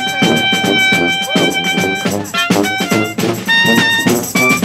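Brass band music with drums: a high horn note held for about two seconds, then shorter phrases over a low moving bass line and a steady drumbeat.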